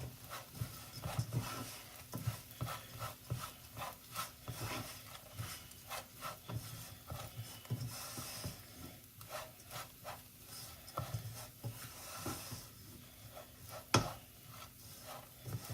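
A spoon stirring and scraping rice as it fries in a pot, in quick irregular strokes. One sharp knock near the end.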